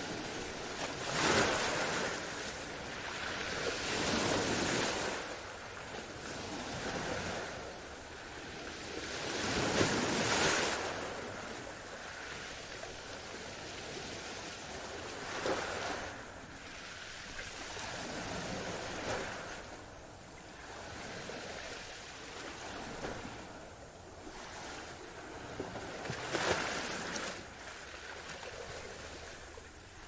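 Ocean surf: waves breaking and washing in, a rushing noise that swells and fades every few seconds, loudest about ten seconds in.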